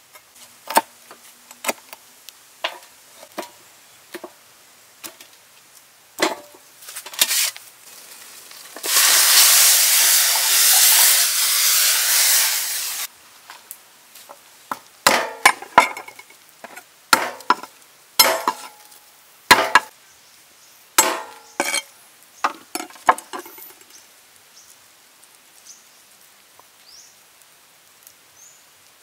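Cleaver chopping on a wooden cutting board: single sharp knocks at irregular intervals, coming thick and fast in the second half. About nine seconds in, a loud steady hiss starts and runs for about four seconds before it cuts off.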